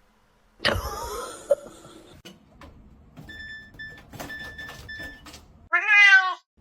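A cat meows once near the end, a short call whose pitch wavers, after a stretch of scattered clicks and a high tone sounding in short, repeated pulses.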